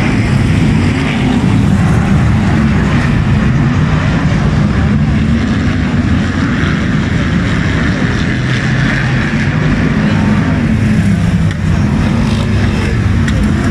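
A pack of F1 stock cars racing together on a dirt oval, their engines running loud and constant, the engine notes rising and falling as the cars accelerate and lift.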